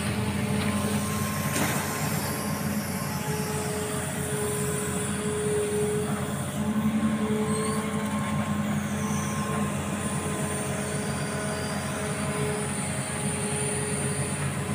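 Amphibious excavator's diesel engine running steadily under working load, with higher whining tones that come and go and shift in pitch.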